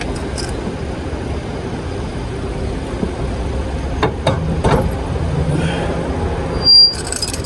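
Truck engine idling steadily, with a few light metal clinks about four seconds in as hitch pins are worked out of the weight-distributing hitch head. A brief loud high blip near the end.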